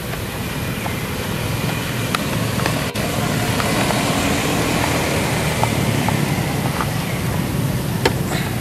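Steady rushing noise, fairly loud, with a few faint ticks scattered through it and a sharper tick near the end.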